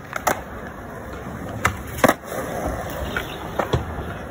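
Skateboard wheels rolling on smooth concrete, with several sharp clacks of the board, the loudest about two seconds in.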